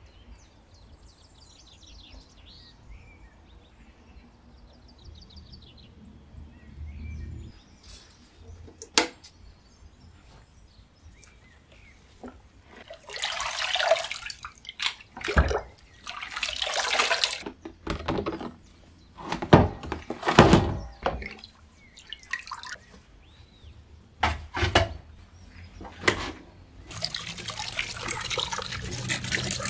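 Liquid splashing and dripping back into a plastic tub as a rusty kerosene stove part is lifted out of its soaking bath, then a steady stream of water poured over the part to rinse it near the end. Faint birdsong at the start.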